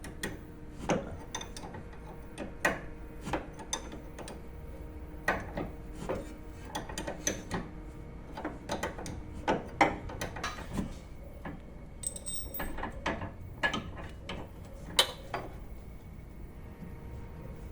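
Irregular metal clicks and knocks from hand tools and parts as a car's front stabilizer end link is worked loose and taken off.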